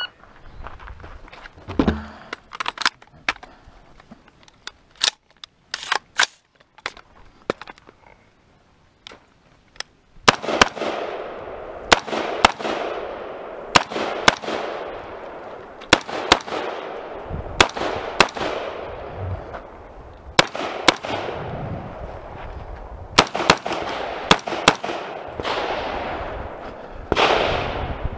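Rapid semi-automatic fire from an AR-style rifle, shots coming about one to two a second, each with a long echoing tail, from about ten seconds in. Before that, only fainter, short sharp cracks.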